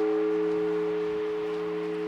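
Orthodox church bell ringing on after a stroke, its hum of several steady low tones slowly fading.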